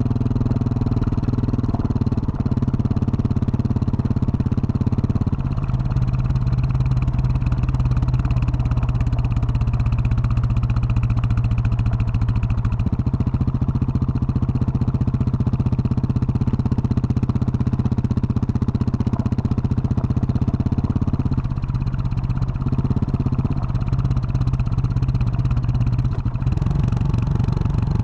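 2021 Husqvarna 701 Supermoto's single-cylinder engine running through a Wings aftermarket exhaust under way on a dirt trail. Its note steps up and down several times as throttle and gears change.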